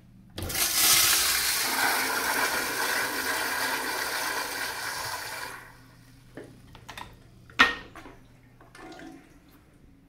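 Commercial wall-hung toilet flushed by its chrome flushometer valve: a loud rush of water for about five seconds that stops fairly abruptly. A couple of seconds later comes a single sharp knock.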